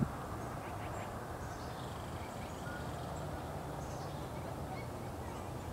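Quiet outdoor ambience: a steady low background noise with a few faint, distant bird calls.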